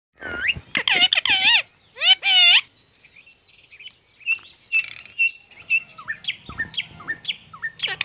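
Rose-ringed parakeet calling: a run of loud squawks that bend in pitch over the first few seconds, then quieter quick chirps and short rising notes.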